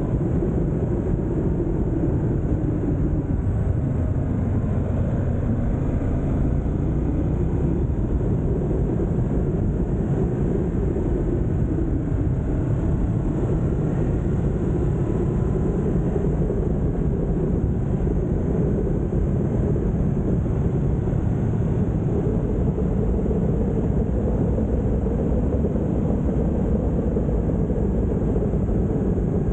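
Ducati Multistrada motorcycle being ridden: a steady rush of engine, road and wind noise with no pauses.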